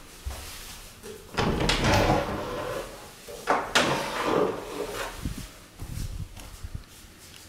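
Bifold closet doors being folded open by hand: two loud movements of the doors, the first about a second and a half in and the second about two seconds later, followed by a few softer knocks.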